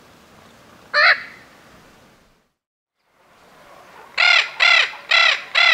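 Spix's macaw calling: one harsh, grating squawk about a second in, then after a brief silent gap a run of harsh squawks about two a second near the end, each rising and falling in pitch.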